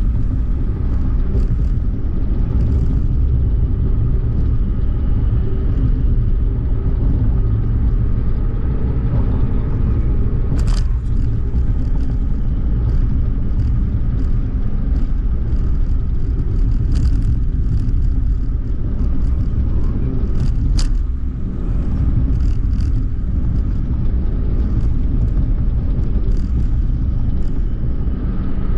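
Suzuki Hustler kei car driving on a road: a steady low rumble of engine and tyre noise, with a few short sharp ticks along the way.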